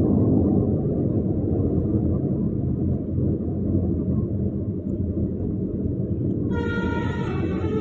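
Vehicle running along the road with a steady low rumble. About six and a half seconds in, a loud multi-tone 'telolet' bus horn starts sounding and carries on to the end.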